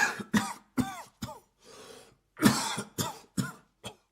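A man coughing in two bouts of about four coughs each, with a quieter breath drawn between the bouts about one and a half seconds in. The coughing stops just before the end.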